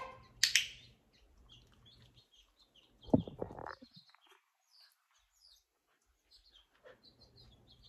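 A dog-training clicker clicks once, sharply, about half a second in, marking the puppy's head coming up at its name. A brief low sound follows about three seconds in, with faint small ticks of the puppy moving on the mat.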